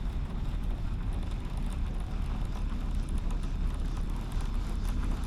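Steady low wind rumble buffeting the microphone, with no distinct events.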